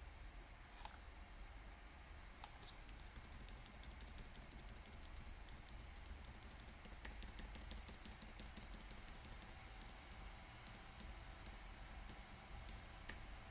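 Faint, rapid clicking of computer keys, several clicks a second, starting about three seconds in and thinning out near the end.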